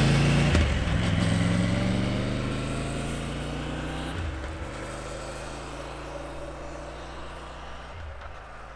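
Triumph Tiger 850 Sport's three-cylinder engine accelerating away up a lane and fading into the distance. Its pitch climbs and drops back as it shifts up, about four and eight seconds in.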